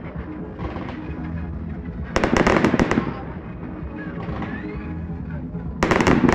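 Fireworks going off: a cluster of rapid sharp crackling reports about two seconds in, lasting under a second, and another near the end.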